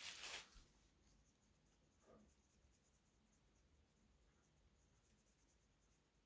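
Near silence: room tone, with a faint, brief rustle fading out at the start and one faint soft sound about two seconds in.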